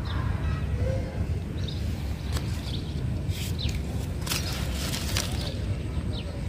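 Leaves of a golden champa (Magnolia champaca) plant rustling and brushing as a hand moves through the branches, in a few short scratchy bursts between about two and five seconds in, over a steady low rumble.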